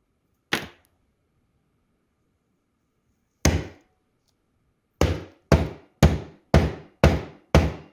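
Oak galls being smashed with hard blows, like striking a ball of wood: one strike about half a second in, another about three and a half seconds in, then a fast run of six at about two a second near the end.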